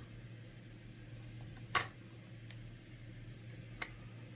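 Small clicks of a metal prying tool against a Surface Pro 4's screen glass and frame: one sharp click a little under two seconds in, then two faint ticks, over a steady low hum.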